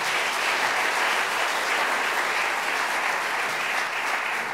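Large seated audience in a big hall applauding steadily, welcoming a speaker to the lectern.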